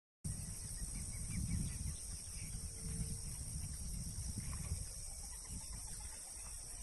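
Evening outdoor ambience beside a lagoon: a steady high-pitched insect drone, a low rumble on the microphone that is loudest in the first five seconds, and a few faint short bird calls.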